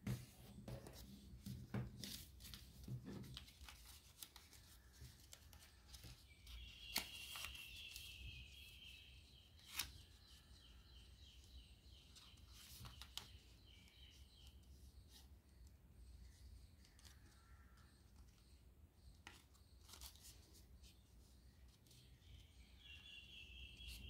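Faint handling of origami paper being folded and creased by hand: soft rustles with scattered crisp clicks as the folds are pressed down.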